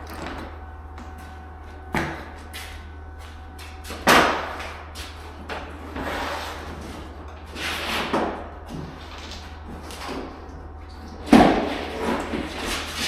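Handling noise from a roll of bubble foam underlayment. There are a few sharp thumps, the loudest about four seconds in and another near the end, with plastic rustling and crinkling between them as the roll is moved and unrolled.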